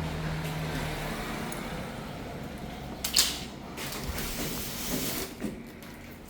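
Sampo 10 kg washing machine running, with a steady hum during the first second, a sharp click about three seconds in, and a hiss from about four to five seconds.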